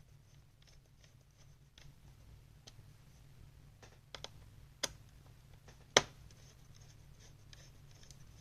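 Small clicks and light scratching of a screwdriver and screw working at the fan mount inside a laptop, with one sharp, loud click about six seconds in.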